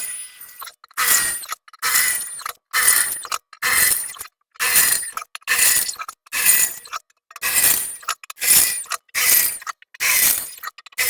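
Drill bit cutting holes in steel plate in short grinding pulses, about one a second, with brief gaps between them.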